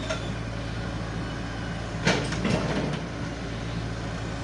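Excavator's diesel engine running steadily, with two sharp knocks about two seconds in as it climbs onto a low-loader trailer.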